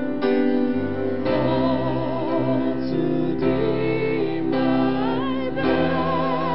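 A slow worship song: held, wavering sung notes over keyboard accompaniment, with the chords changing every second or so.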